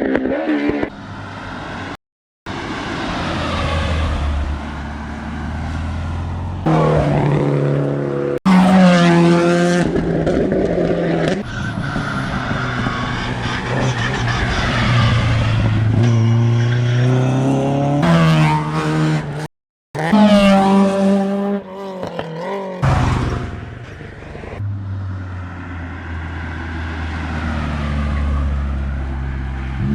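Rally cars driven hard past the track, one pass after another: engines revving up and dropping back through gear changes, with tyre noise and some tyre squeal. The sound cuts out abruptly twice for a moment between passes.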